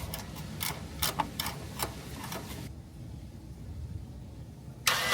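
Ratchet wrench clicking in short, uneven strokes as the last actuator bolt is tightened. The clicks stop after about two and a half seconds. A brief, louder rasp comes near the end.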